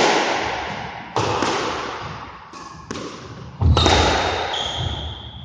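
A squash rally: the hollow rubber ball is struck by rackets and slaps off the walls and floor, about five sharp hits a second or so apart, each echoing around the enclosed court. The loudest hit comes about three and a half seconds in and is followed by a high ringing tone that hangs on.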